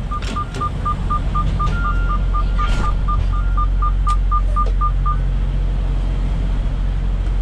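Electronic warning beeps from the truck, short and all at one pitch, about four a second, that stop about five seconds in, over the steady low running of the truck's diesel engine.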